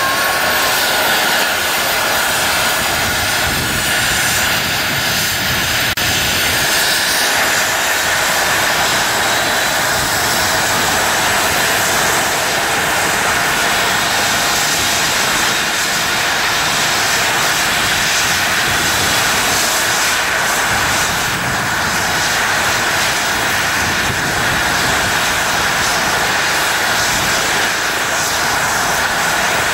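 Eurocopter EC135 air ambulance helicopter running on the ground with its rotor turning. Its twin turbine engines give a steady high whine over the rush of the rotor blades.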